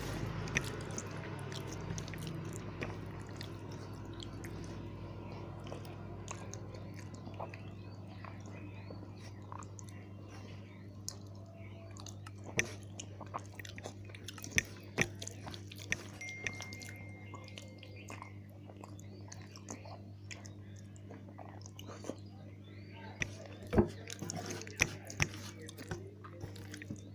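Close-up chewing and mouth sounds of someone eating a meal of khichuri, fried potatoes and cabbage curry, with scattered small wet clicks and smacks over a steady low hum.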